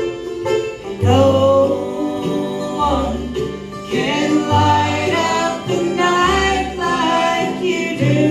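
Bluegrass band playing live, with upright bass, banjo, mandolin, fiddle and acoustic guitar, and several voices singing together over the instruments.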